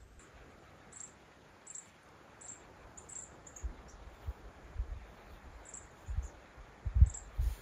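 Insects chirping: short, very high chirps at irregular intervals, with a pause in the middle. Several low thumps sit under them, the loudest about seven seconds in.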